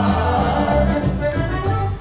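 Background music led by an accordion.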